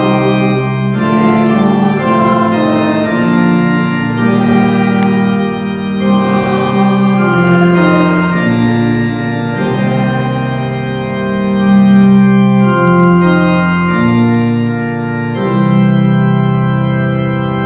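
Organ playing a slow hymn tune in sustained chords, each chord held for about a second or more before moving to the next.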